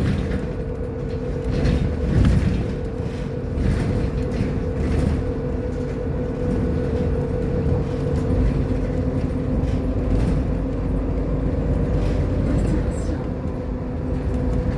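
Irisbus Agora L city bus running along the road: a steady low rumble from the drivetrain with an even, unchanging whine, plus occasional knocks and rattles.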